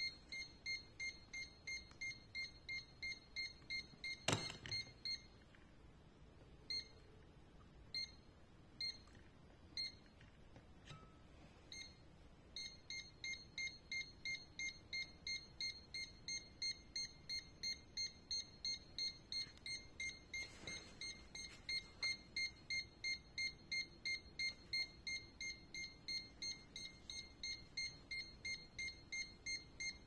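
DEKO LL12-GTD 3D laser level's out-of-level alarm: a rapid high-pitched beep, about three a second, while the unit is tilted beyond its self-levelling range. After a sharp knock about four seconds in, the beeping drops to a few single beeps, then starts again steadily about twelve seconds in.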